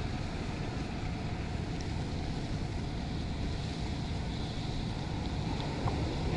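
Steady low engine rumble of a motorboat running on the river, mixed with wind noise on the microphone.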